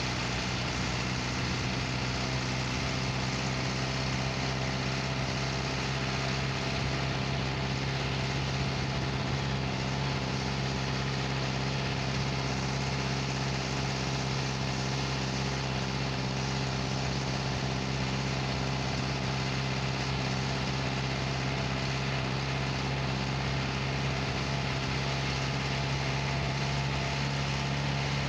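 Engine of the vehicle carrying the camera running at an even pace while driving, a steady low engine note over constant road and wind noise.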